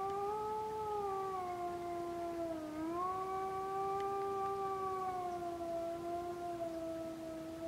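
A wolf howling: one long howl that holds a steady pitch, dips briefly about three seconds in, then holds again and falls slightly near the end.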